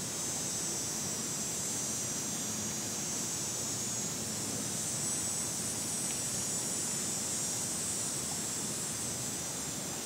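A cicada calling with a long, steady high-pitched buzz that grows stronger through the middle and eases off near the end, over a steady outdoor hiss.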